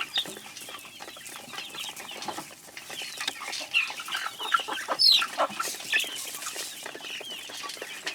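Flock of chickens clucking, with many short calls overlapping; one louder call, falling in pitch, about five seconds in.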